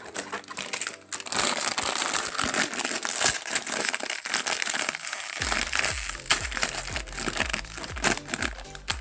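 Shiny plastic blind bag crinkling and crackling continuously as it is handled and torn open by hand.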